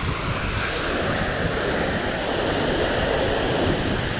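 Steady rush of a waterfall and the white-water creek below it, with some wind buffeting the microphone.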